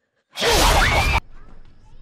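A trailer whoosh sound effect: a sudden loud rushing burst with sliding shrill tones, lasting just under a second and cut off abruptly, then a faint low background.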